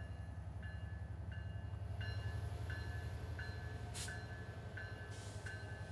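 Diesel-electric locomotive running with a steady low rumble while its bell rings evenly, about once every three quarters of a second. A short hiss comes about four seconds in.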